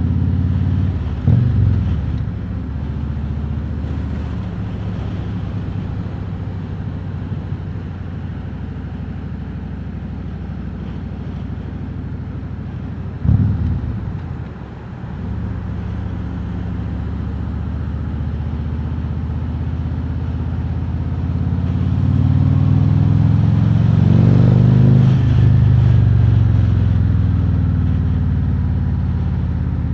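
Harley-Davidson Road King Special's V-twin engine running under way. There are two brief loud bursts, about a second in and again around 13 seconds. Later the engine note climbs in pitch and loudness as the bike accelerates, then drops off sharply near the end.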